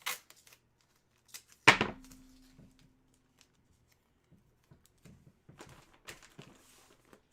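A single sharp thump a little under two seconds in, followed by a faint low hum that fades out over about two seconds, then scattered faint clicks and rustles of things being handled on a table.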